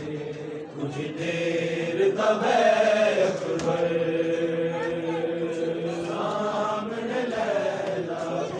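Male voice reciting a noha, a Shia mourning lament, chanted in long held melodic notes.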